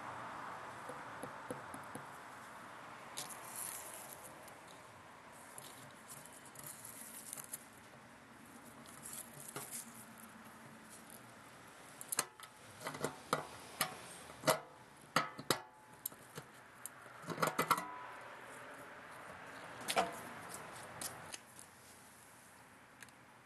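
Handling noise: a run of sharp clicks and light knocks of small hard parts being picked up and turned in the hand, bunched in the second half, over a faint hiss.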